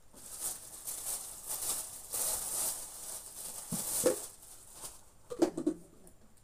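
A thin plastic bag crinkling and rustling as it is handled, followed near the end by a couple of short, sharp knocks.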